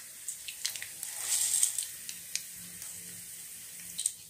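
Hot cooking oil in a kadai sizzling faintly with a spoonful of mustard seeds just added, with a few sharp ticks as the seeds begin to splutter. The hiss swells briefly about a second in.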